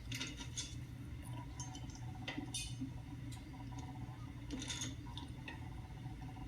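Scattered light metallic clicks and taps of steel parts being handled as a bolt is fitted through a valve spring compressor leg, over a steady low hum.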